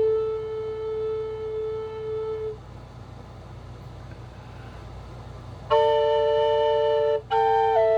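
Solo flute playing slowly. A long held low note ends about two and a half seconds in, followed by a pause with only faint hiss. Near the end a new phrase sounds two notes at once: a steady low drone under a higher melody note that steps down.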